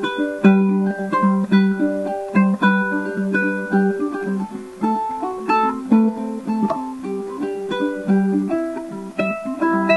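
A ukulele played alone, picking out a melody note by note, a few notes a second, over a recurring low note.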